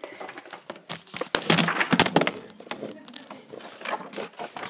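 Handling noise from a phone: rustling, crackling and knocks as it is picked up and moved against the microphone, loudest about one and a half to two seconds in.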